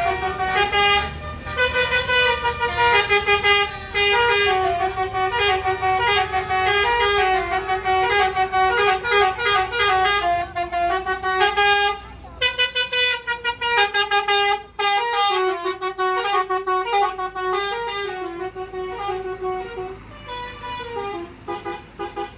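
A tour bus's basuri telolet musical air horn, roof-mounted horn trumpets run by an electronic melody module, playing a fast tune of stepping notes. It breaks off briefly about halfway and plays more quietly near the end.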